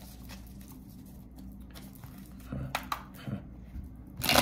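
Tarot cards being handled and shuffled: quiet sliding with a few light clicks of the cards, then a louder flurry as the deck is riffled and bridged near the end.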